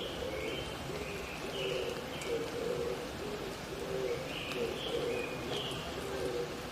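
Oriental turtle dove (mountain pigeon) cooing, a low phrase of short notes repeated over and over, while another small bird gives short higher calls at intervals over a steady background hiss of the wet forest.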